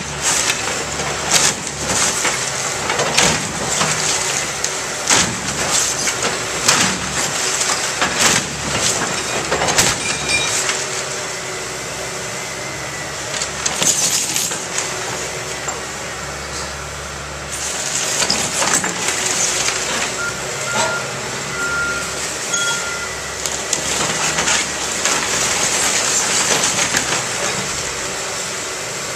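Excavator breaking up and shifting the wreckage of a wood-framed garage: boards and siding crack, splinter and crash many times, densest over the first ten seconds and again around the middle, over the steady running of the machine's engine. A few short beeps come a little after the middle.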